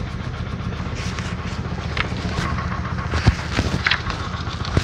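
High-frequency chest wall oscillation vest for cystic fibrosis airway clearance running: its air-pulse generator drives a steady, low, rapid rumble through the hoses. A couple of sharp knocks come about three seconds in and near the end.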